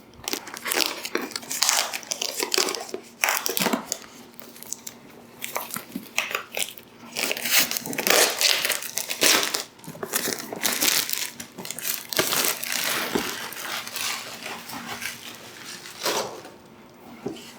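Product box packaging being unwrapped and handled by hand: irregular crackling and rustling that comes and goes in short spells.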